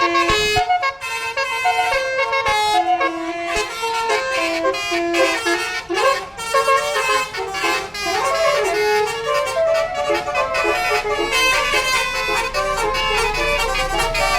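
Indonesian bus 'telolet' horn, a multi-tone musical air horn, playing a fast melody of short notes that step from one pitch to the next almost without a break.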